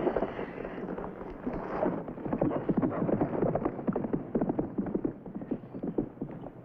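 A horse's hooves clip-clopping in quick, uneven strikes as the horse walks off.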